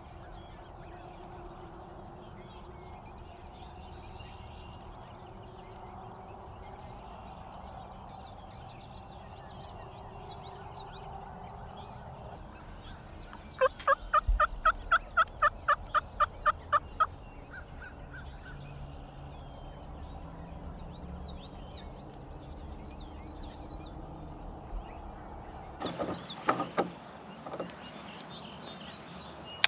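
Wild turkey calling: a loud, quick run of about sixteen evenly spaced yelps lasting some three seconds, about halfway through. Songbirds chirp faintly throughout, and a few short, loud sounds come near the end.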